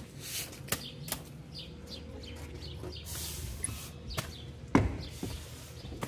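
Barn door being opened and walked through: a few short clicks and knocks, with a louder thump a little before the end. Faint bird chirps in the background.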